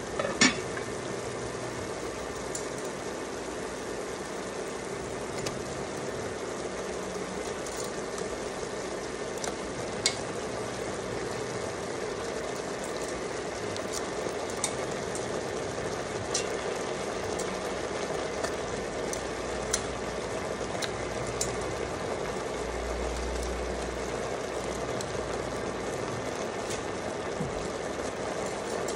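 Tomato-and-onion broth simmering in an enameled cast-iron pot, a steady bubbling hiss. A few short clicks and knocks stand out, the loudest about half a second in.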